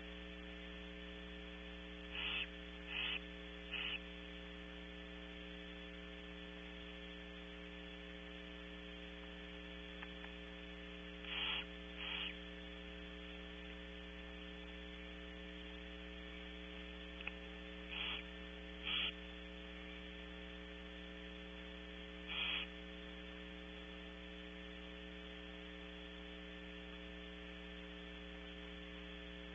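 Steady electrical mains hum from the nest-box camera's audio. About eight short, breathy hisses from barn owls at the nest sound over it, in a cluster of three near the start, then two pairs and a single one later.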